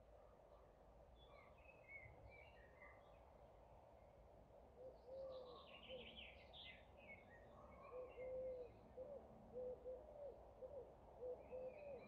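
Faint evening countryside birdsong: several small birds chirping and twittering high up, busiest around the middle. From about five seconds in, a lower-voiced bird repeats short rounded notes, a few each second.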